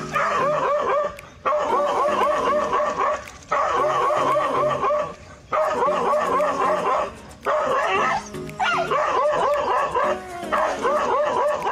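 A dog barking rapidly, about five barks a second, in runs of one to two seconds with short gaps between them, over background music.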